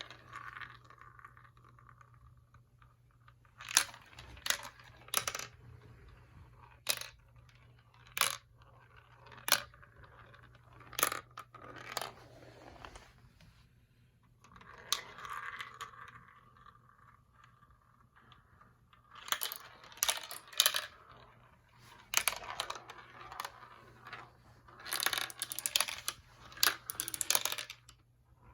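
Marbles running down a plastic marble-run track: sharp single clacks as they drop onto and knock against the track pieces, stretches of rolling rattle, and dense runs of clattering as several marbles come through together near the end.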